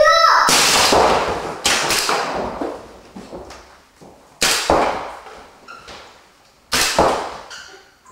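Paintball markers firing in an echoing indoor arena: about six sharp shots, some in quick pairs, each followed by a ringing tail of about a second.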